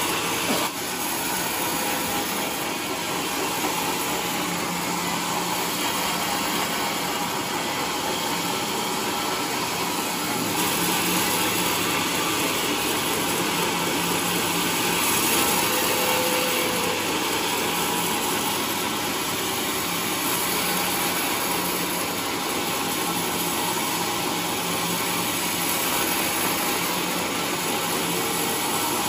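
Sawmill log saw running steadily as it cuts a trembesi log on the carriage, a continuous even machine noise with a low hum that gets a little louder about a third of the way in.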